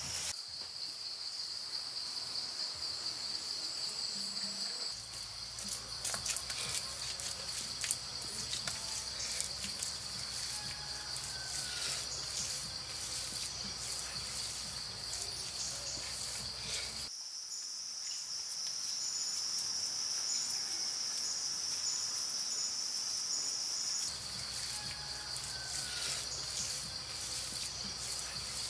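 Insects chirring in a steady high-pitched drone, with scattered clicks and knocks.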